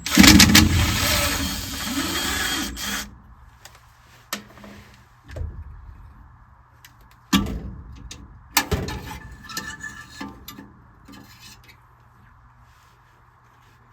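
Quarter-inch nut driver run for about three seconds, backing out the furnace flame sensor's mounting screw. This is followed by scattered metallic clicks and rattles as the sensor and its bracket are handled.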